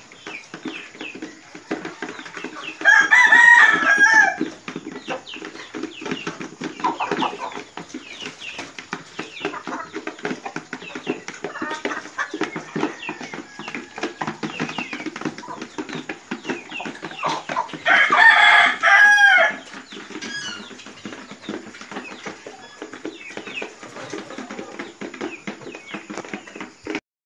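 A flock of chickens clucking and feeding, with many quick sharp clicks of pecking. A rooster crows twice, loudly, about three seconds in and again about eighteen seconds in.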